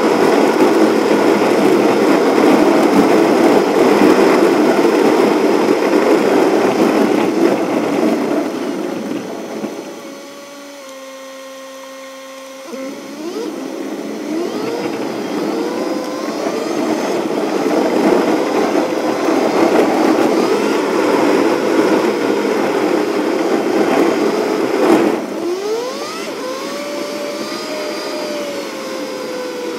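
Car engine and road noise heard from inside the cabin, fast-forwarded with a time-lapse dashcam recording so it comes out as a high whir. A loud rushing noise drops about ten seconds in to a quieter, steady hum, then returns with quick rising whines as the car speeds up again.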